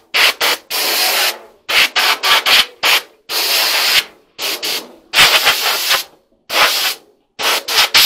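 Compressed air from an air compressor's blow gun, fired as a series of hissing blasts to blow dirt and grime off dryer parts. Some are short puffs in quick succession, others last about a second.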